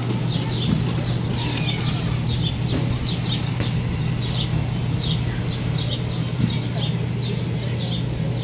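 Small birds chirping over and over, short high downward chirps about once a second, over a steady low machine hum.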